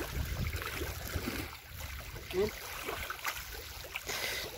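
Water lapping at the lakeshore over a steady low rumble of wind on the microphone. About four seconds in there is a brief splash as a hooked striped bass thrashes at the surface.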